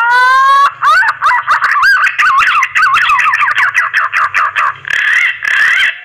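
Green pigeon (punai) mating call: a rising whistled glide, then a rapid run of warbling whistles that waver up and down, with scattered clicks through it.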